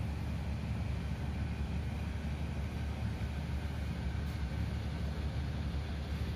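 A steady low rumble of an idling engine, unchanging throughout.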